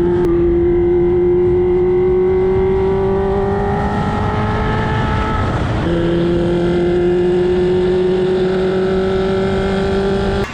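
Engine pulling under acceleration: a steady tone climbs slowly for about six seconds, drops abruptly as with a gear change, then climbs again.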